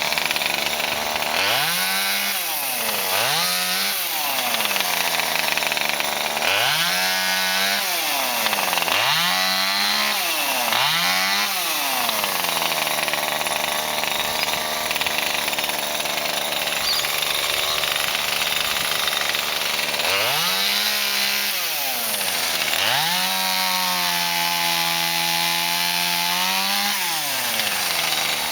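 Two-stroke chainsaw running and cutting. Its engine note rises to full revs and drops back six times, then is held at full throttle for about four seconds near the end.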